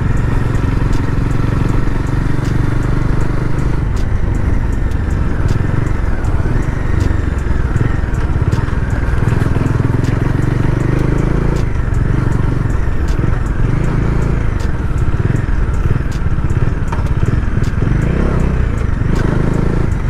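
Bajaj Dominar 400's single-cylinder engine running on the move, its pitch dropping and climbing again several times through gear changes, with wind and road rumble. The shifts go clank clank: the gearshift is unusually hard.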